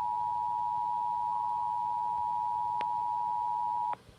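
Emergency Alert System attention signal: the steady two-tone alarm of 853 and 960 Hz sounded together, heard over a TV broadcast, which cuts off suddenly about four seconds in.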